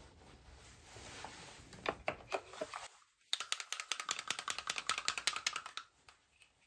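A few scattered light taps, then a rapid, even run of small clicks, about a dozen a second, lasting about two and a half seconds.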